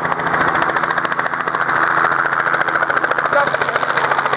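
Helicopter running: steady engine noise with the rotor's fast, even beat.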